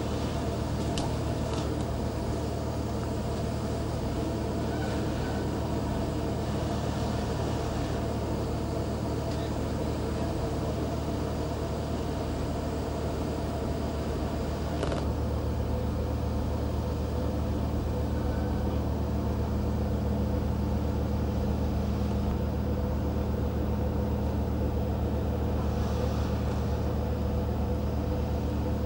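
Cargo ship's engine drone heard on board: a steady low hum with several fixed tones. About halfway there is a click, after which the hum shifts slightly in pitch and grows a little louder.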